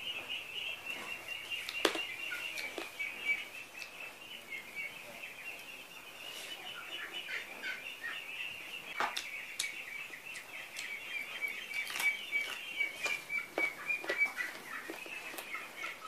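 A constant chatter of high, rapid peeping from ducklings runs under the whole stretch. Scattered sharp clicks and smacks come through it from eating by hand, the loudest near two seconds in, around nine seconds and around twelve seconds.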